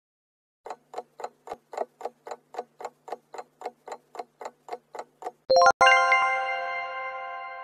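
Countdown-timer sound effect: a clock ticking at about four ticks a second for roughly five seconds, giving time to answer. A bright ringing chime follows about five and a half seconds in, slowly fading, as the answer is shown.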